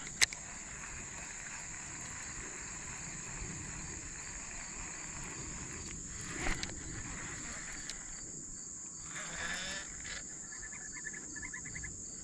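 Steady high-pitched drone of insects, with a sharp click near the start and a couple of brief knocks.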